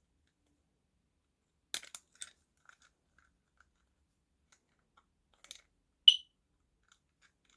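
A few small plastic clicks and taps from handling model railway kit parts, then one short high-pitched chirp about six seconds in, the loudest sound: a smoke alarm's low-battery chirp.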